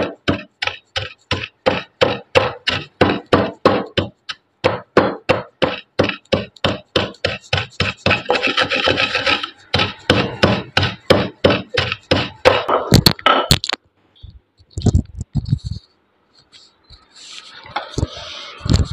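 Pestle pounding roasted spice seeds in a mortar with steady knocks, about four a second, crushing them coarsely. The pounding stops about 14 seconds in. After a pause come a few last knocks and a short stretch of scraping near the end.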